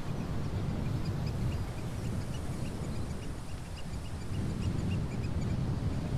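Wind buffeting the microphone, a steady low rumble, with small birds chirping over it in quick strings of short high notes.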